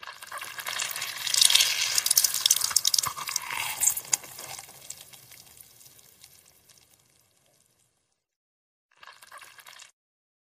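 Ripe mango crushed in a bare hand: wet squelching and crackling of pulp and juice, loudest in the first four seconds and fading away, then a short second squelch near the end.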